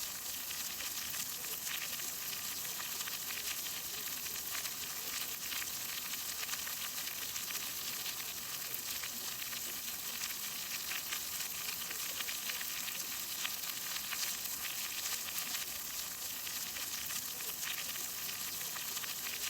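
Steady rain falling: a dense, even hiss of countless small drop impacts that does not let up.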